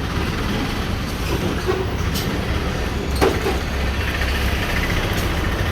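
Busy road traffic rumbling steadily, with two short sharp knocks about two and three seconds in.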